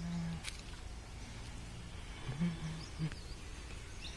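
A person humming a few short, low, level notes. Small birds chirp faintly in the background, and a low rumble runs underneath.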